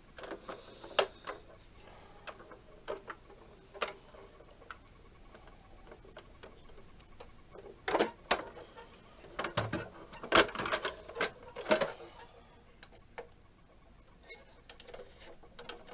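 Plastic clicks, taps and rattles of a vintage 1978 toy refuse truck being handled and its parts worked by hand, with a busier run of knocks about eight to twelve seconds in.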